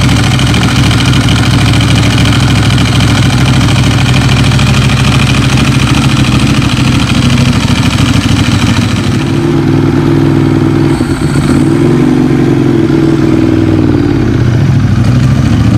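Ducati L-twin sportbike engine running loudly on a steady note, then easing off about nine seconds in, its pitch wavering up and down.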